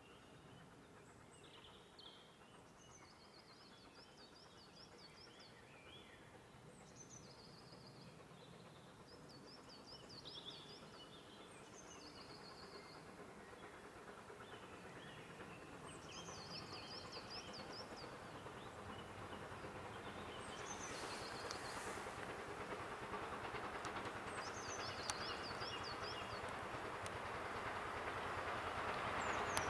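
GWR 4575 class small prairie tank locomotive 5541 approaching with its train, the rumble of the train growing steadily louder throughout. A songbird sings short repeated trilled phrases over it.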